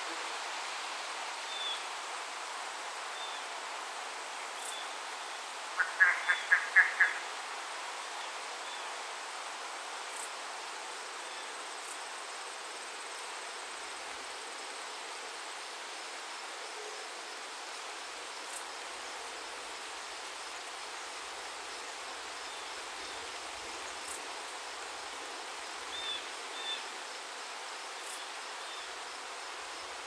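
Steady rain falling, an even hiss throughout. About six seconds in, an animal gives a quick run of about six loud calls, and a few faint high chirps come and go.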